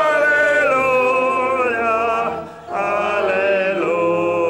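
Church congregation singing a hymn together, holding long notes, with a short pause between phrases about two and a half seconds in.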